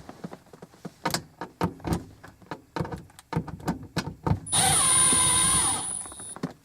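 Clicks and knocks of a socket being fitted onto a bolt, then a cordless impact tool runs for about two seconds, spinning a console bolt out with a steady high whine that winds down in pitch as it stops.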